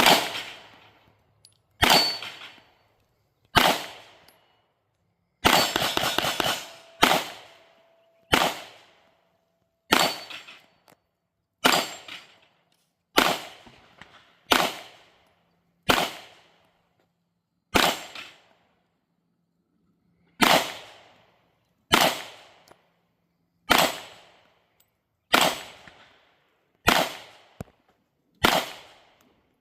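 Canik Prime pistol with a ported barrel and compensator being fired in a slow string of single shots, about one and a half seconds apart, each with a short ring-off. About five seconds in, several shots come in quick succession.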